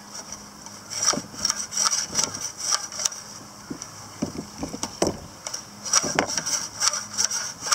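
Recoil starter of a Briggs & Stratton Intek 6.75 OHV engine being worked by hand, its new starter rope pulled out and let rewind over and over to take the slack out. The rope runs out and back in irregular strokes about once a second, with clicks as the recoil pulley spins.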